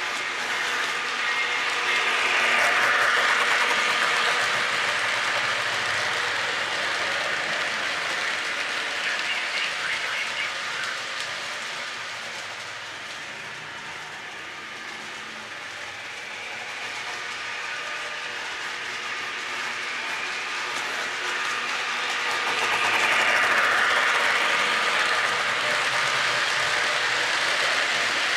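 Lionel O-gauge Chessie EMD SD9 model diesel and its freight cars rolling on three-rail track: a steady whir of motor, gears and wheels with a light clickety-clack. It swells as the train passes close by, about three seconds in and again near the end, and fades in between as the train runs along the far side of the loop.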